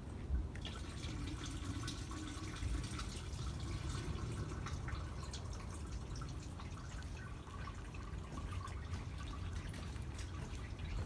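Kittens lapping liquid from a plastic tub: quick, irregular wet clicks and drips over a low, steady background rumble.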